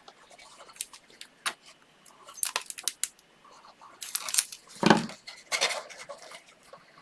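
Cardstock and a liquid glue bottle being handled at a craft table: light clicks, taps and scratchy rustles, with a dull thump just before five seconds in.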